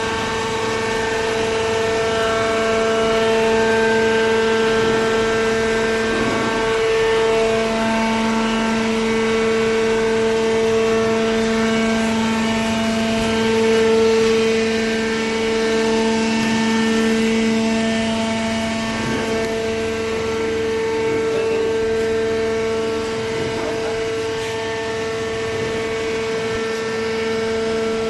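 Hydraulic baler's electric motor and pump running with a steady whine made of several held tones, the lower tone shifting slightly about seven seconds in as the load changes.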